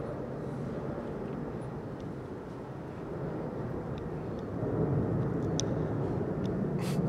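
Steady low outdoor rumble, like distant traffic, swelling slightly about five seconds in, with a few faint clicks near the end.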